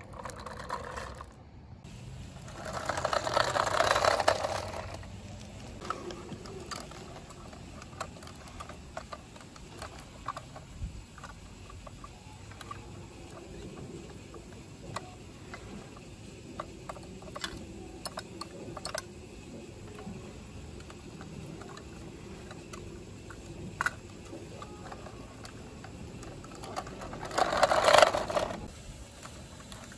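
Small plastic clicks, ticks and scrapes as the arms and cans of diecast model garbage trucks are worked by hand. Two louder swells of rushing noise stand out, one about three seconds in and one near the end.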